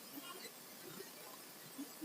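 Spotted dove cooing: a few faint, short low coo notes, the last one near the end.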